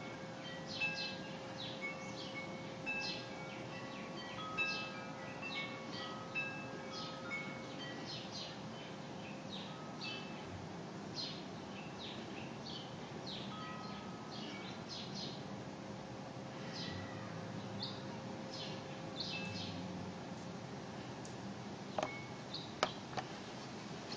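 Wind chimes ringing, mostly in the first half, with many short high chirps of small birds throughout. Two sharp clicks come near the end.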